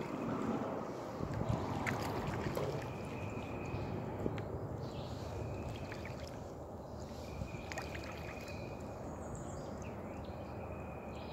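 Kayak paddling in calm water: the paddle blade dipping and water trickling and dripping off it, with a few light clicks. A thin, high steady note recurs every couple of seconds in the background.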